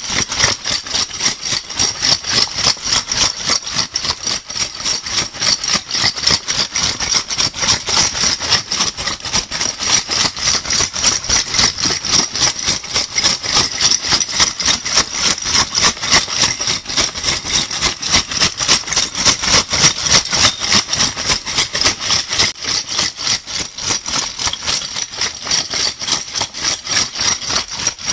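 Metal crown bottle caps being shaken, a dense metallic rattle repeating in a rapid, even rhythm of several shakes a second.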